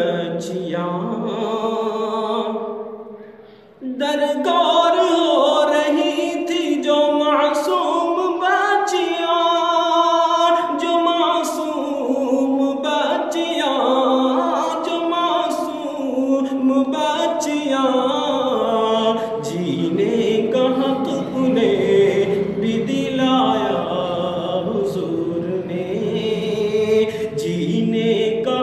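A man singing a naat, an Urdu devotional poem in praise of the Prophet, solo and unaccompanied. His voice fades out about three seconds in and comes back strongly about a second later, then carries on with long held lines.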